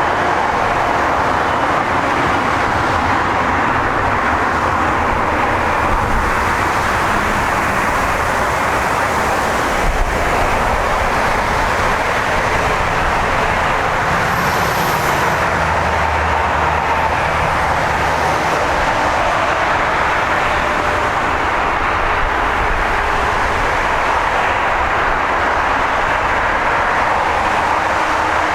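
Jet airliner engines running, a loud, steady rushing noise with a faint whine in it that holds level throughout.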